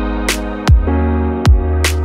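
Electronic background music: a steady beat of kick drum and snare over held chords and a deep bass.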